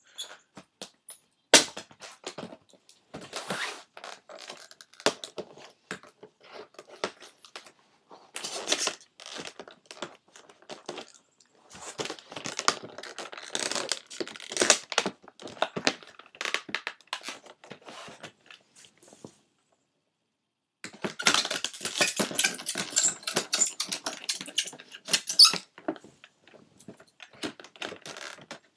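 Hands struggling to open a laptop stand's packaging: scattered clicks, thunks and rustles as it is pulled and twisted, then a longer, louder burst of tearing and crinkling near the end. It is hard to open.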